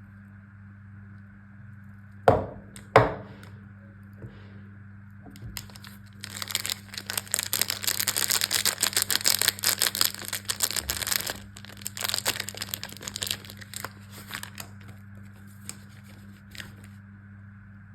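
Two sharp knocks, then a soap bar's wrapper being torn open and crinkled: a dense crackling run for about five seconds that thins into scattered crinkles and clicks.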